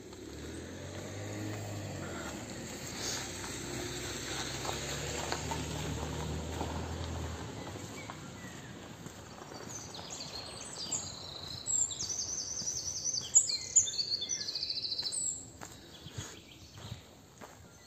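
Songbirds singing, with rapid high trills loudest from about two-thirds of the way in. A low steady rumble underlies the first half.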